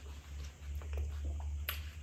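Close-miked eating sounds as a soft banana-leaf-wrapped dessert is chewed and the leaf handled: moist chewing and small mouth clicks, one sharper click about three-quarters of the way in, over a low steady hum.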